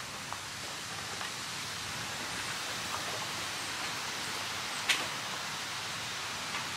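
Steady outdoor background hiss with a few faint ticks and one sharper click about five seconds in.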